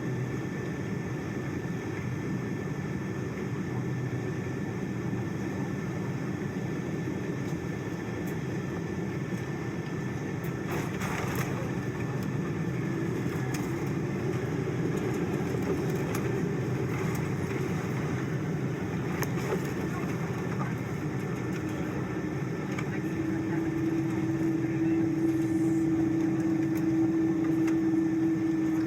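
Cabin noise inside a Boeing 777-200 airliner during landing: a steady rumble of engines and rushing air, with a thin high whine throughout. A steady hum comes in about three quarters of the way through and grows louder, with the noise rising a little.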